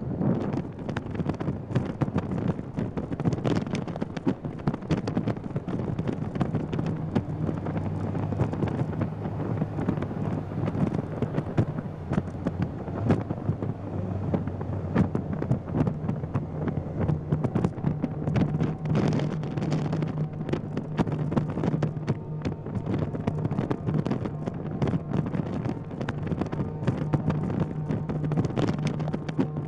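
Strong wind buffeting the microphone in a continuous crackling rush. About six seconds in, a steady low engine hum joins it.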